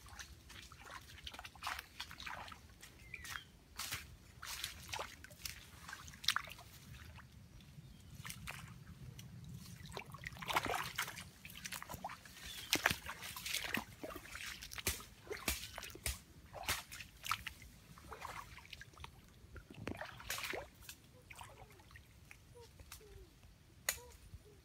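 Water splashing and sloshing in many small, irregular splashes and drips.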